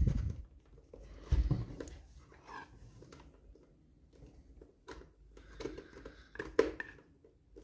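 Hard plastic toy parts being handled and fitted together, with a few scattered light knocks and clicks.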